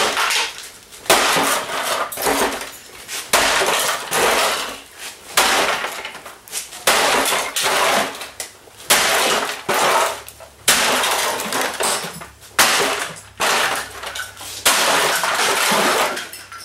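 A Dirt Devil vacuum cleaner's plastic housing being smashed apart: about a dozen heavy blows, one every one to two seconds, each followed by a short crash of breaking, clattering plastic.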